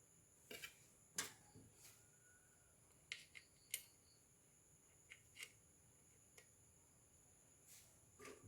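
Faint, scattered small clicks and taps, about a dozen at irregular intervals, from graphics card parts and tools being handled.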